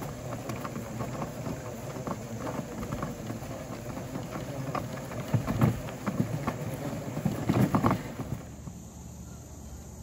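Push broadcast spreader rolling across a lawn: wheels and gear-driven spinner rattling, with a dense patter of grass seed being flung out. A few louder knocks come around the middle and again past seven seconds. About eight and a half seconds in, the rattle cuts off to a quieter outdoor background.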